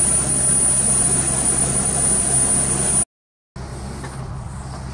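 Westland Wasp helicopter's Rolls-Royce Nimbus turboshaft running, heard inside the cockpit: a steady high whine over a steady low drone. It cuts off suddenly about three seconds in, and fainter background noise follows.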